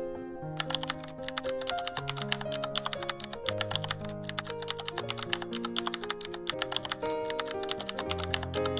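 Rapid keyboard typing clicks, a typing sound effect, start about half a second in and run on steadily over background music of held notes.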